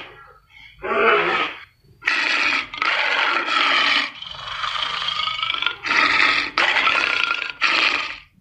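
Lion roaring: a run of about eight loud, rough roars in quick succession, each under a second long.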